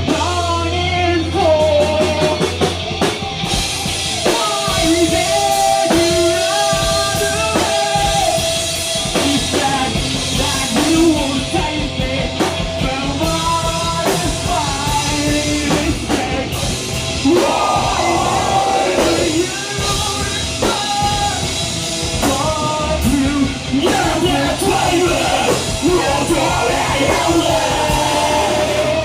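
Heavy metal band playing live: drums, distorted guitars and bass under sung and yelled vocals, loud and dense throughout.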